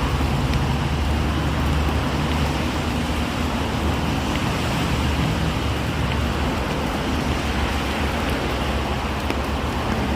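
Steady rain falling, an even hiss with scattered faint drop ticks over a constant low rumble.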